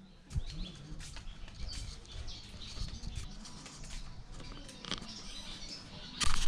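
Light footsteps on stone paving with faint chirping of small birds, and a short louder rustling noise near the end.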